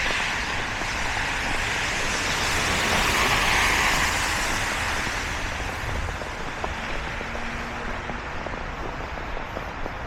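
Traffic on a wet, snowy street: the hiss of a car's tyres on slush swells to a peak about three seconds in, then fades as it passes.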